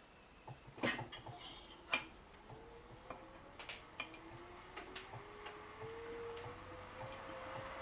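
Samsung Eco Bubble washing machine starting its cycle: two sharp clicks, then scattered light ticks and a faint motor whine that rises slowly in pitch from about three seconds in and then holds steady as the drum begins to turn.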